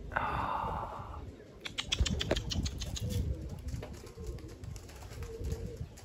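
Racing pigeons at the loft: a rush of wing flapping at the start, then a quick run of sharp wing claps, and a brief low coo near the end, with wind rumbling on the microphone.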